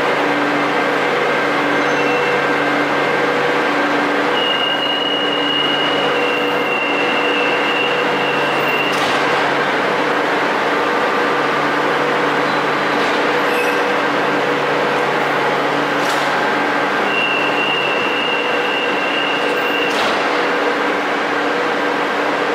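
Madrid Metro Serie 7000 train standing at the platform with its on-board equipment running in a steady hum. Twice a high steady tone sounds for several seconds and ends in a sharp knock, and there are a couple of other knocks in between.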